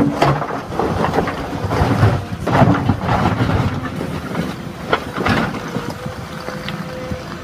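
Cat 312E L excavator's steel bucket scraping into a pile of old bricks and scooping them up, the bricks clattering and knocking against the bucket in several bursts, loudest about 2.5 seconds in. Underneath, the excavator's engine and hydraulics run steadily with a thin whine.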